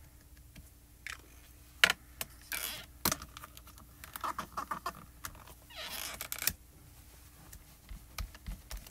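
Sharp plastic clicks and taps of hand stamping: a green ink pad tapped onto a clear photopolymer stamp, and the hinged clear door of a stamp positioner knocking shut and pressed down. Two short swishes come in between, and soft low thumps near the end as the stamp is wiped on a terry towel.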